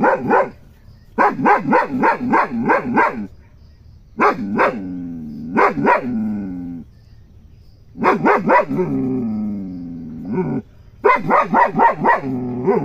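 German Shepherd barking in rapid runs of about four barks a second. Twice a couple of barks trail off into a long, falling howl. These are warning barks at someone approaching, telling them to stay away.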